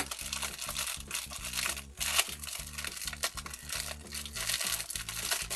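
Clear plastic film wrapping crinkling and crackling as it is handled and pulled at by hand to get it open.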